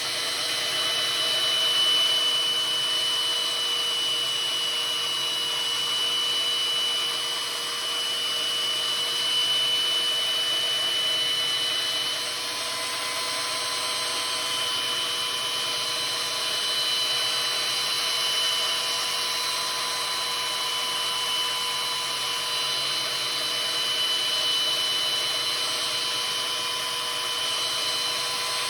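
Electric power tool running steadily while sharpening the steel edge of a splitting maul, a continuous whine with gentle swells in loudness as the edge is worked.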